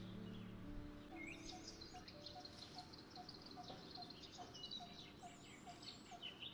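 Background music fades out in the first second, leaving faint outdoor birdsong: scattered high chirps and warbles, with a short lower note repeated about twice a second.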